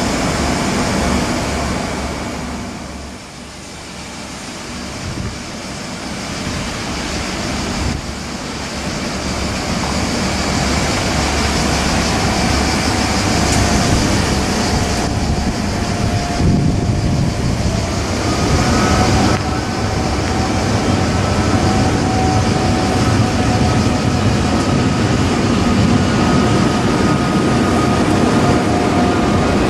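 Locomotive-hauled train of Corail passenger coaches rolling past close by: a steady rumble and clatter of wheels on the rails. The sound dips a few seconds in, then builds and holds as the coaches pass, with faint high ringing tones in the later part.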